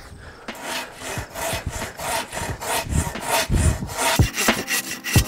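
Silky Katanaboy 1000, a large folding Japanese pull saw with big impulse-hardened teeth, sawing through a log in quick back-and-forth strokes, about four a second. The strokes grow sharper and louder about four seconds in.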